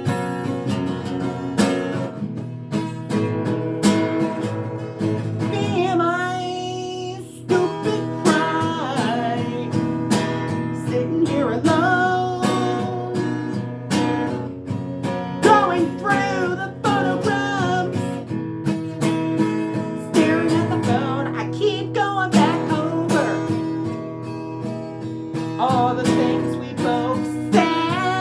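Strummed acoustic guitar playing a pop-country song, with a singing voice over it from about six seconds in, holding and bending notes without clear words.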